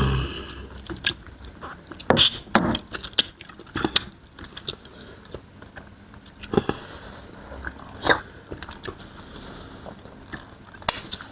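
Close-up mouth sounds of people eating starch fufu and banga soup: wet chewing and lip smacks, with scattered sharp clicks at irregular intervals.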